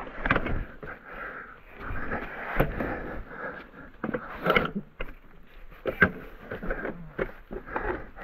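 Mountain bike ridden over a wet, muddy trail: irregular knocks and rattles from the bike over rough ground, with scraping noise between them.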